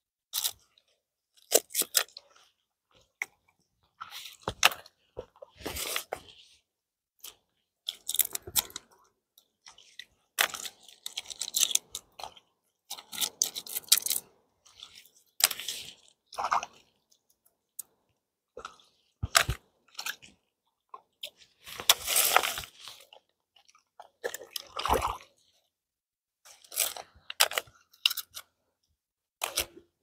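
Mussel shells crunching and clicking in irregular bursts as mussels are picked off the shore and gathered, with a longer, louder crunching stretch about two thirds of the way through.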